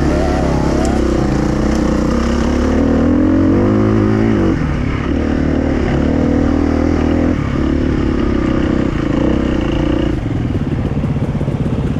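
Enduro motorcycle engine running under throttle, its revs rising and falling. The revs climb around three to four seconds in, then fall away. After about ten seconds the engine settles to a lower, more even running, near idle.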